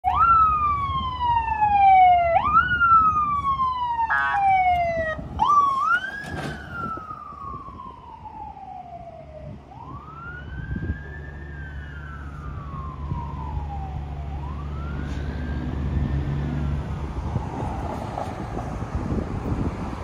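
Fire apparatus electronic sirens wailing, each sweep rising quickly and falling slowly, about every two and a half seconds. About halfway through, a softer wail with smoother, slower sweeps takes over and fades out, over a steady low engine hum.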